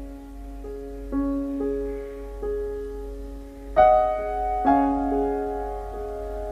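Soft, slow solo piano music with held notes and chords, the loudest chord struck about four seconds in.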